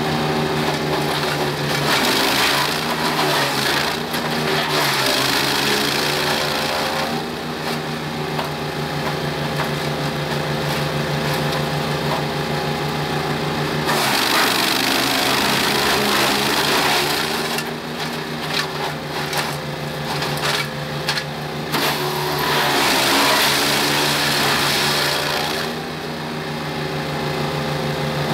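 Petrol-engined M500/24 wood chipper running, with loud surges of shredding and chip-blowing noise several times as leafy branches are fed in. The engine pitch dips under each load and recovers between feeds, and there are sharp cracks of wood being cut in the second half.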